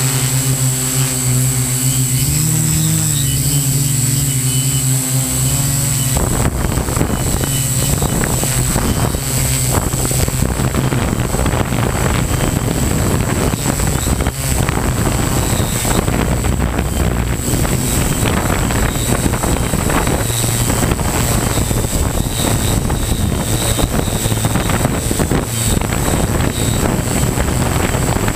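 A model hexacopter's electric motors and propellers whirring in flight, heard close up from its onboard camera. The pitch shifts a little early on, and after about six seconds a denser rushing noise takes over beneath the steady hum.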